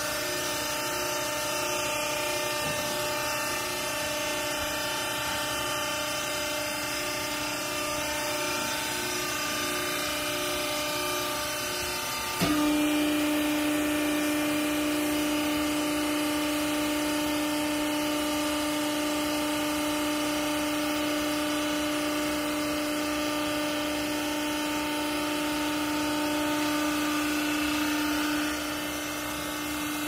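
The hydraulic pump motor of a vertical clothes baler hums steadily. About twelve seconds in a click sounds, and the drone becomes louder and steadier as the ram works down into the chamber. It drops back shortly before the end.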